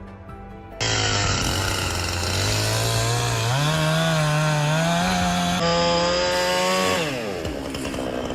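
Two-stroke chainsaw engine starting up loud about a second in. Its speed climbs in steps to full throttle, holds high, then winds down near the end.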